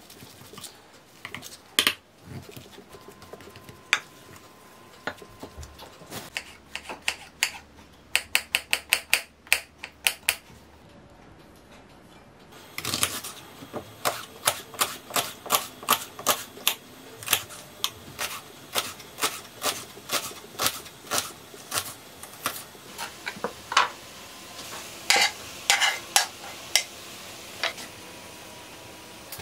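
Food-prep sounds: a fork scraping and clinking against a glass bowl as mashed potato is mixed, then a knife chopping an onion on a wooden cutting board in a long run of sharp, evenly spaced chops, about two to three a second.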